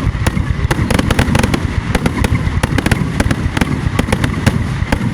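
Fireworks display: a dense, rapid barrage of sharp cracks and pops over a continuous low rumble of bursting shells.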